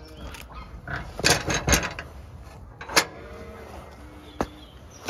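Knocks and clanks of rubber boots against an iron bar gate while it is climbed, two close together about a second in and a sharp one about three seconds in. Faint short animal calls sound between the knocks.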